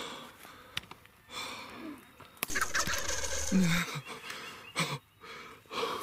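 A turkey gobble, a rapid rattling call that starts about two and a half seconds in and lasts about a second.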